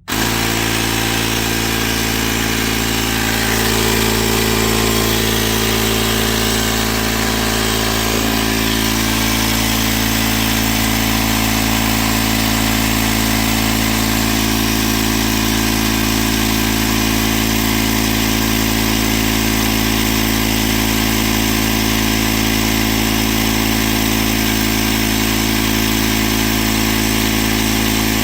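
Ryobi R18I-0 18V ONE+ cordless tire inflator switching on abruptly and running steadily, its battery-powered compressor pumping air into a low car tire. The running sound is loud.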